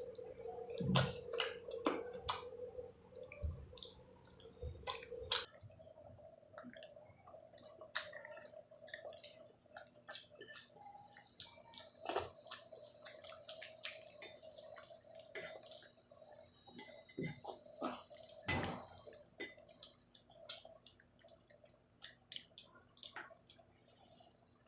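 A person eating a rice-and-curry meal close to the microphone: wet chewing, lip smacks and many small sticky clicks from the mouth, irregular throughout.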